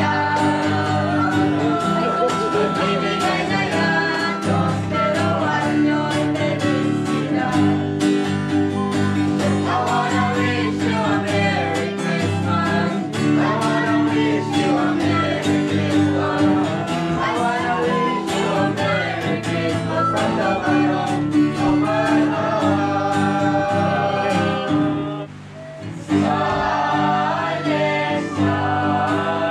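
A group of carolers singing a Christmas carol to guitar. The music drops out briefly near the end, then starts again.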